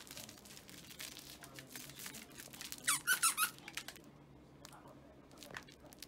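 The squeaker in a yellow plush chick toy squeezed several times in quick succession about halfway through, with light scuffs and rustles around it.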